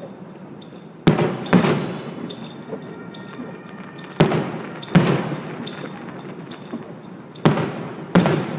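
Fireworks going off: six sharp bangs in three pairs, roughly three seconds apart, each followed by a fading echo.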